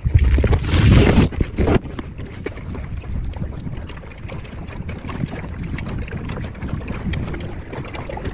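Water slapping and splashing against the hull of a Pacer two-person sailing dinghy under way, with wind on the microphone. A loud rushing burst fills the first couple of seconds, then settles to a steady wash with small irregular splashes.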